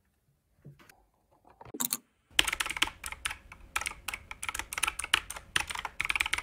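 Fast typing on a computer keyboard, a dense run of key clicks that starts about two seconds in. A few faint knocks and one short rustle come before it.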